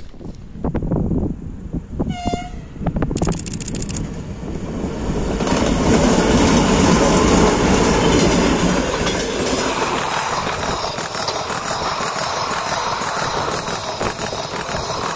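2M62U twin-section diesel locomotive, with its two-stroke diesel engines, passing close by at the head of a long passenger train. The engine noise grows loud, peaking about six to nine seconds in, then gives way to the steady rolling and clickety-clack of the passenger cars going by.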